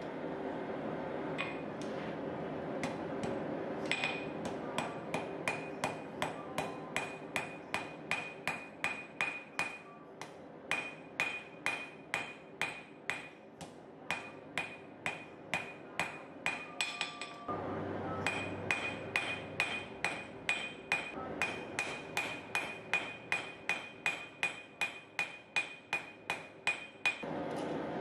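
Hand hammer striking a red-hot mild-steel bar on an anvil, knocking the corners off the hook's arm and cleaning up its taper. The blows come in a steady rhythm of about two to three a second, each with a short ring. There are a few scattered blows at first and a brief pause about two-thirds of the way through before the hammering resumes.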